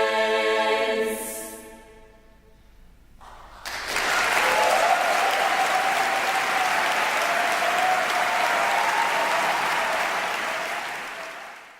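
A women's barbershop chorus holds the final chord of an a cappella song and releases it. After about two seconds of quiet, an audience bursts into loud applause with cheering, which fades out near the end.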